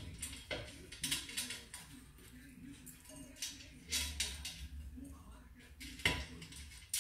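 Metal clicks and clatter come in short runs as a front wheel hub is fitted into the fork of a homemade scooter frame, with a sharp knock about six seconds in.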